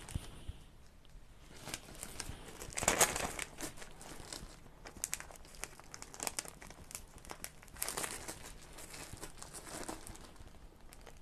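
Irregular crinkling and rustling of thin wrapping material being handled, with small clicks, louder about three seconds in and again near eight seconds.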